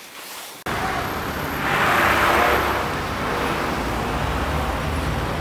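Outdoor traffic noise: after a quiet start it cuts in sharply under a second in, a steady low rumble with a hiss that swells and fades about two seconds in, as of a passing car.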